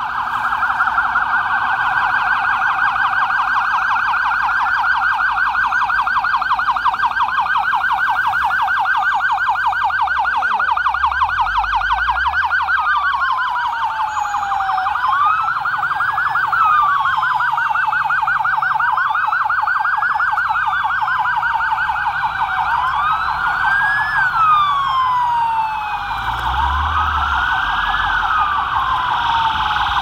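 Several police pickup sirens sounding together: a fast yelp throughout, overlaid by slower wails that rise and fall every few seconds. Twice a low engine rumble swells as vehicles drive past.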